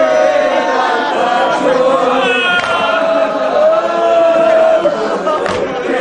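Men's voices chanting a nauha, a Shia mourning lament in Urdu, with long drawn-out sung lines held on sustained notes.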